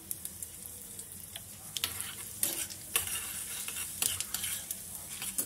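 Hot oil sizzling in a small steel kadai as a tempering of mustard seeds and dal fries, with asafoetida powder stirred in. A steel spoon scrapes and clinks against the pan several times.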